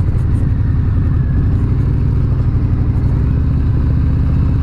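Harley-Davidson motorcycle engine running at low revs as the bike rolls slowly along, a steady, even, fast-pulsing exhaust note.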